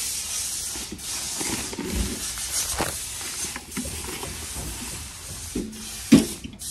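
Steady hiss and rustling handling noise from a handheld phone being carried while walking, with scattered light knocks and a sharper knock near the end.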